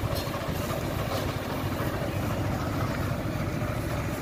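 A truck engine idles steadily with a low rumble.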